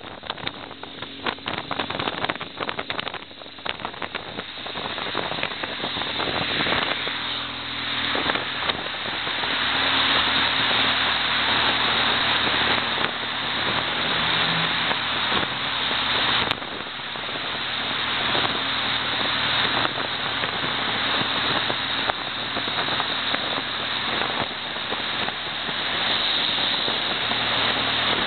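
BMW R1200GS boxer-twin motorcycle ridden at speed: steady engine hum under loud wind and road noise, with crackles in the first few seconds and a rise in level over the first ten seconds before it holds steady.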